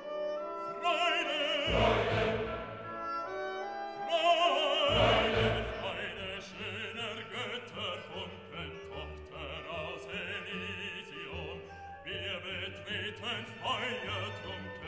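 Background music: operatic singing with vibrato over an orchestral accompaniment.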